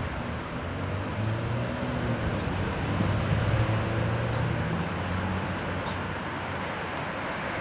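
Street traffic noise: a steady hum of passing vehicles, with a low engine drone that is strongest in the first few seconds and then eases.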